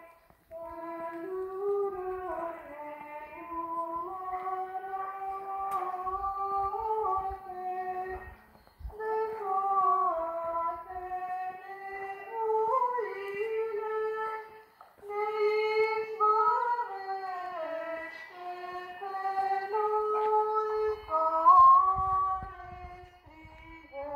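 A woman singing an unaccompanied melody in long, gliding phrases, with short breaks for breath about 8 and 15 seconds in.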